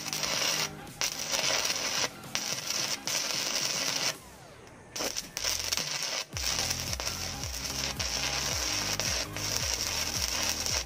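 Stick-welding arc of a 6011 electrode run at 90 amps on an inverter welding machine: a steady crackling hiss that cuts out briefly a few times and drops out for about a second some four seconds in before it strikes again. Background music with a steady bass line plays underneath.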